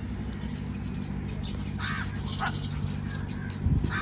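Birds giving harsh, cawing calls: two calls about two seconds in and another at the very end, over a steady low rumble. A low thump comes just before the last call.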